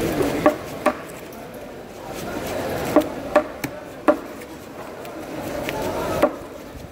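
Large knife chopping rohu fish on a thick wooden cutting board: about seven sharp knocks in uneven groups, two near the start, three around the middle and one near the end.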